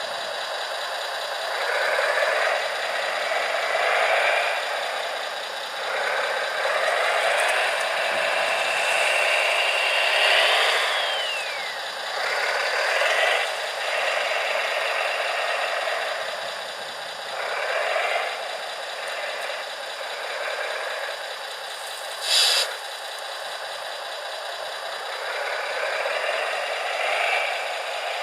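Small electric motors and gearboxes of radio-controlled construction models whining in repeated swells, rising and falling in pitch as they drive and work, with a rattle of plastic and metal parts. A single sharp click comes about 22 seconds in.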